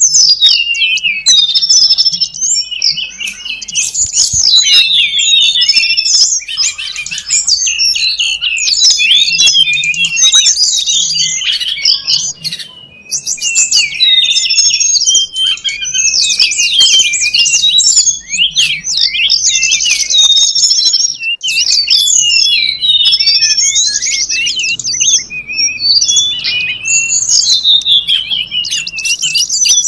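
Bird-lure recording of tledekan gunung song: dense, high-pitched chirps and fast twittering trills, almost without pause.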